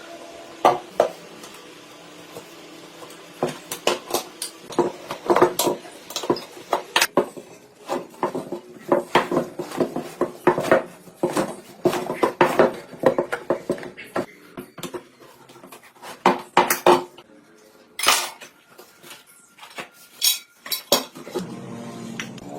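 Irregular metallic clinks, taps and knocks of small metal parts and hand tools being handled and worked on.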